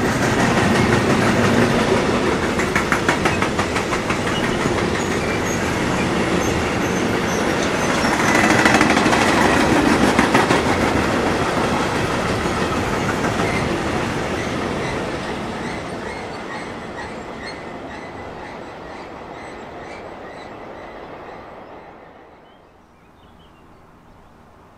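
Freight train wagons rolling past on the rails, the wheels clattering in a quick rhythm over the rail joints, with a thin high wheel squeal. The sound slowly fades as the end of the train passes, then drops away sharply near the end.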